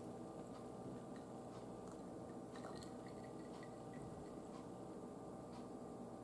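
Quiet room with a low steady hum and faint, scattered clicks and taps at irregular intervals.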